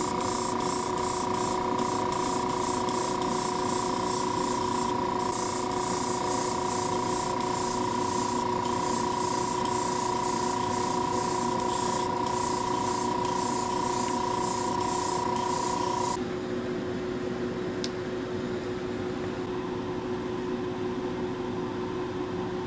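Gravity-feed airbrush spraying paint in short repeated bursts, about two a second, its hiss joined by a steady whistle of air. The spraying stops about 16 seconds in, leaving a steady low hum.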